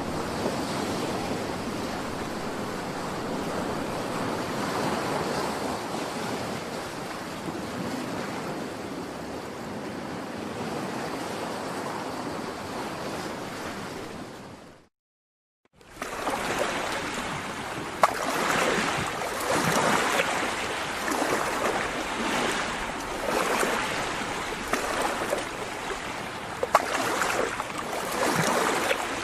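Ocean surf: a steady wash of waves that cuts out for about a second halfway through, then returns as waves surging and breaking in uneven swells.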